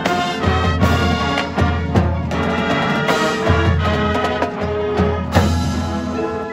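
Marching band playing live: brass holding full sustained chords over front-ensemble percussion, with heavy low notes and accented drum hits coming in several times.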